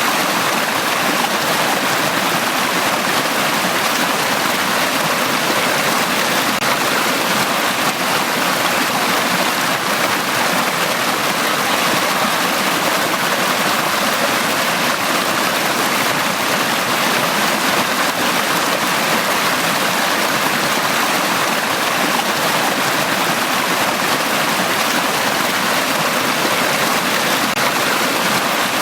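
Mountain stream flowing steadily through a valley, an even rushing of water with no breaks.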